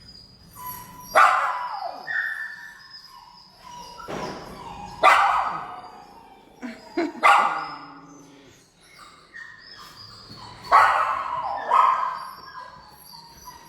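Shelter dogs barking in the kennels: about eight loud barks in clusters, each trailing off in an echo.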